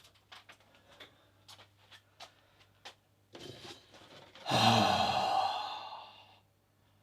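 A few faint clicks and taps, then about four and a half seconds in a man lets out a long, loud exasperated sigh that trails off, a sign of frustration with the job.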